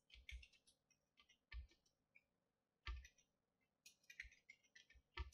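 Faint, irregular keystroke clicks on a computer keyboard, some with a soft low thump.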